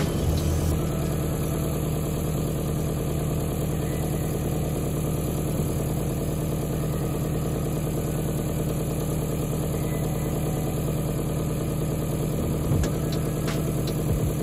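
Nissan Atlas (Isuzu Elf) car carrier's 4HJ1 four-cylinder diesel running steadily at idle, driving the PTO hydraulics as the loaded deck slides back and tilts down. A few short clicks near the end.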